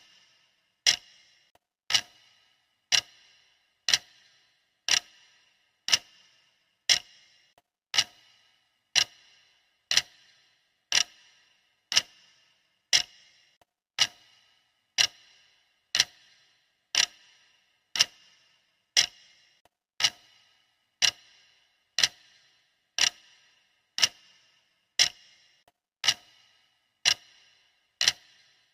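Clock-style ticking of a countdown timer: one sharp tick each second, steady and even, each tick with a short metallic ring.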